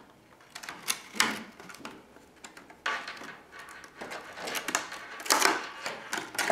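Hard plastic packaging being handled: a clear plastic shell and a green plastic tray crackling and clattering as the mouse is lifted out, in a series of irregular rustles and knocks.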